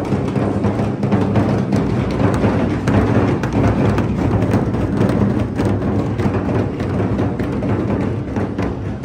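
Several large double-headed barrel drums (dhols) beaten together by hand-held sticks, a loud, dense, continuous drumming with no break.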